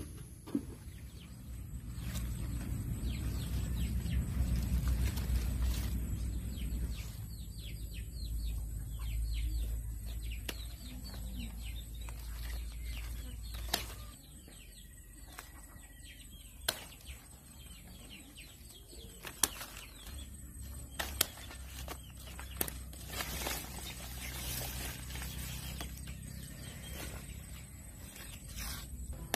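Pruning shears snipping mango stems, a handful of sharp clicks spaced a few seconds apart, over rustling of leaves and handling. Birds chirp in the background.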